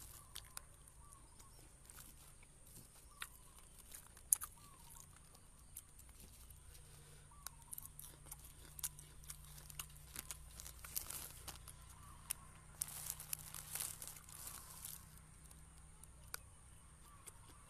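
A person chewing food close to the microphone, with scattered soft crunches and mouth clicks. A louder stretch of chewing and plastic-bag crinkling comes about three-quarters of the way in.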